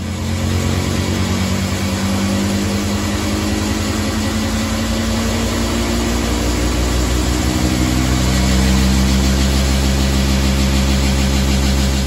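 LG front-load washer with an inverter direct-drive motor spinning at speed, running very loud with a heavy, fast-pulsing low drone. It is the sound of a malfunction: the machine is shaking violently and moving across the floor.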